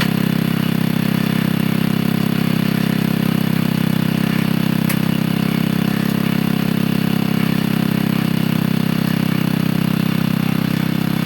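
Small engine running steadily at an even speed, driving a homemade winch that hauls on its cable.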